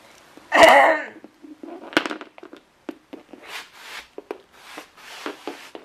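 Small plastic toy figures being handled and set down on a laminate floor, with a sharp click about two seconds in and a run of light taps and rustles after it. A brief loud voice sound comes a little under a second in.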